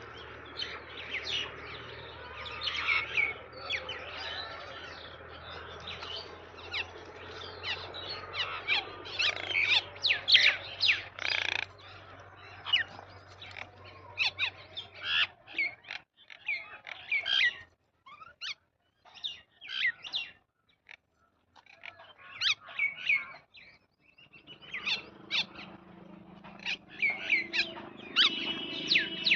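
Small birds chirping: many short, high chirps in quick, irregular succession, thinning out with brief silent gaps in the second half. Near the end a steady high tone joins in.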